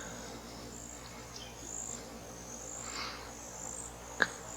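Insects, crickets by their sound, chirping steadily in a high-pitched background drone. A single sharp click about four seconds in.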